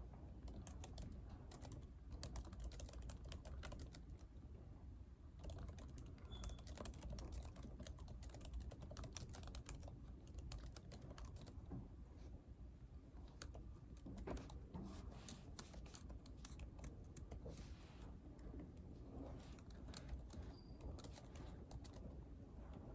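Typing on a computer keyboard: quick runs of soft key clicks broken by short pauses, one about four seconds in, over a steady low room rumble.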